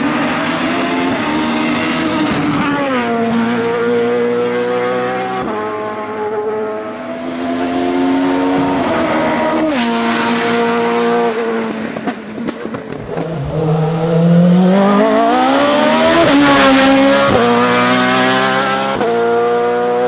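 Formula 3000 single-seater race car's engine accelerating hard, its pitch climbing through each gear and dropping back at every upshift, about half a dozen shifts in all. It fades briefly about twelve seconds in, then comes back at its loudest.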